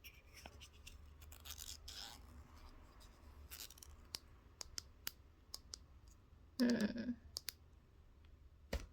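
Close-up clicks and scratchy rustling from a toothbrush and toothpaste being handled. Partway through there is a short, louder sound like a brief voiced murmur, and a sharp click near the end.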